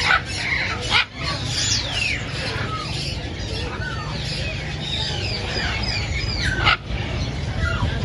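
Many caged birds calling at once: overlapping short chirps and quick falling whistles, with two brief louder calls, one about a second in and one near the end. A steady low rumble runs underneath.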